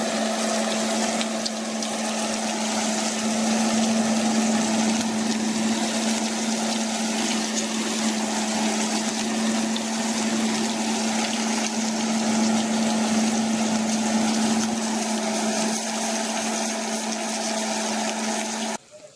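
Salay fish frying in oil in a nonstick pan: a steady sizzle over a steady low hum, cutting off suddenly near the end.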